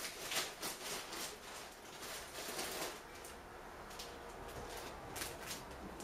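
Samsung Eco Bubble front-loading washing machine in its wash phase: wet laundry and water sloshing and swishing in the turning drum. There is a run of short swishes in the first half, then it goes quieter with two more swishes near the end, as the drum pauses between turns.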